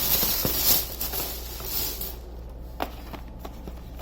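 Rustling handling noise for about two seconds, then quieter with a couple of light clicks.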